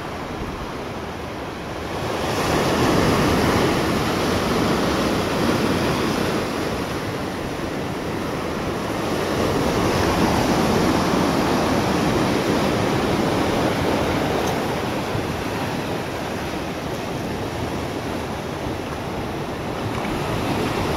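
Sea waves washing, with wind, as a steady rushing noise that swells louder about two seconds in and again around ten seconds in.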